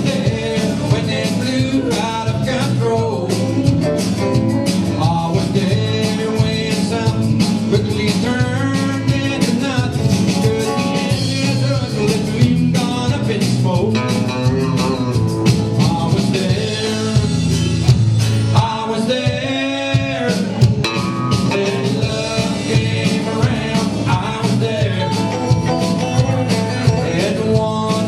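A band playing a song with guitar and a singing voice over a steady beat.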